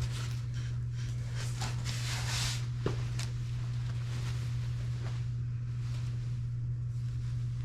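Rustling of clothes being handled and shuffled, loudest a couple of seconds in, with a few light clicks, over a steady low electrical hum.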